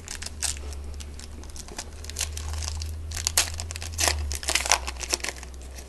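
Foil trading-card pack wrapper crinkling and tearing as it is handled and opened, with irregular crackles throughout and a steady low hum underneath.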